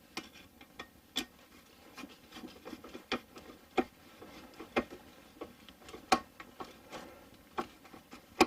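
Irregular small sharp clicks and ticks, about one or two a second, from a clamp being tightened onto the diesel heater's exhaust pipe.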